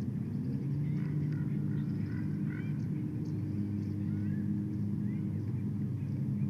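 A steady low engine-like drone with a few held tones, one edging up in pitch about half a second in, with faint small-bird chirps above it.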